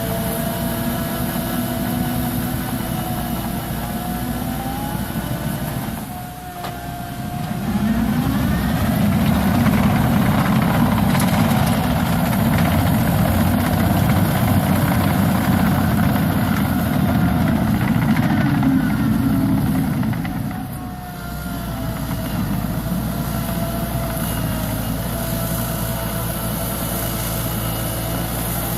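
Liebherr 724 crawler dozer running, its diesel engine steady with a whine that rises and falls. It dips briefly, then runs louder and rougher for about twelve seconds, and eases back near the end.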